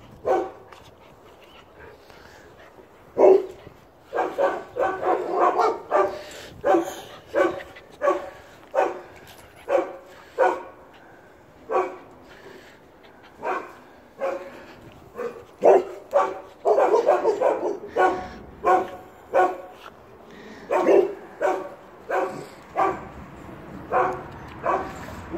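Bernese mountain dog puppy barking repeatedly in play: short barks, some single and some in quick runs of several at a time.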